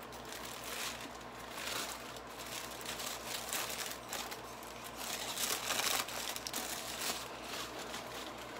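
Honeycomb kraft wrapping paper and tissue paper crinkling and rustling in a run of quick crackles as they are handled and pulled apart. The crinkling is loudest about five to six seconds in.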